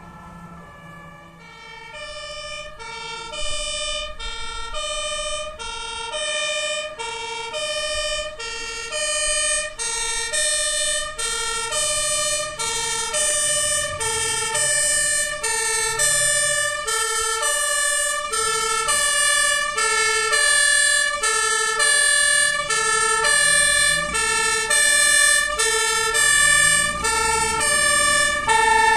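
German two-tone emergency-vehicle siren (Martinshorn), alternating between a low and a high note about once a second. It comes in a second or two in and grows steadily louder as the vehicle approaches.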